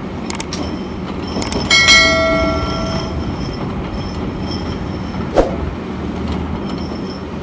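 Large hydraulic excavator's diesel engine running steadily, with sharp knocks and, about two seconds in, a loud metallic clang that rings for about a second before dying away, as of steel striking rock or metal.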